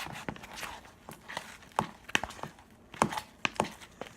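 Scattered light clicks and knocks from slime-making containers and utensils being handled on a tabletop, a few sharp taps at uneven intervals.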